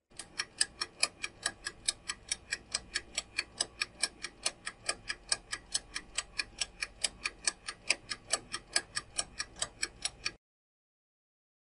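Countdown-timer sound effect: a fast, even clock-like ticking, roughly five ticks a second, that stops abruptly about a second before the end.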